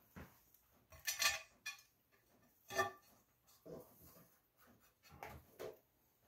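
Irregular metal clinks and clanks as the rear-end cover is fitted back onto a Cub Cadet 71 tractor's transmission housing. There are several short knocks, the loudest about a second in.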